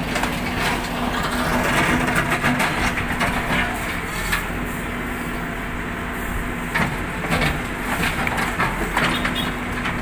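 Hyundai backhoe's diesel engine running steadily while its bucket crushes into a concrete and hollow-block wall: dense crumbling and cracking for the first few seconds, then a few separate sharp knocks of breaking masonry near the end.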